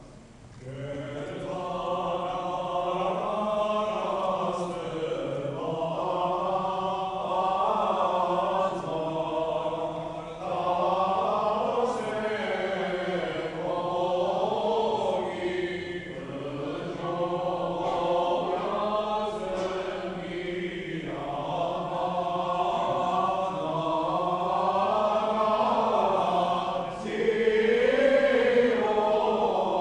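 An Armenian church choir chants a liturgical hymn in long melodic phrases, with brief breaks between them, over a steadily held low note.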